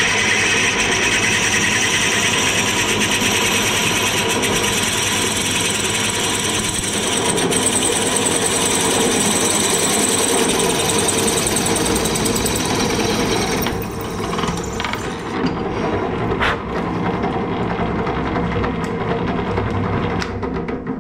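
Pillar drill running, its bit cutting into a cast iron hand wheel to drill a tapping hole for the handle. About 14 seconds in the hissing cutting noise stops, leaving a lower steady running sound with a few clicks.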